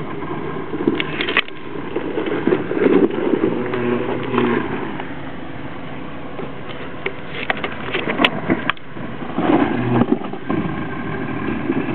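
Jeep Wrangler TJ engine revving unevenly as it crawls over loose rock, with the tires spinning for grip and short sharp clicks and clatters of rock under them. The engine swells near the start and again around ten seconds in, easing in between.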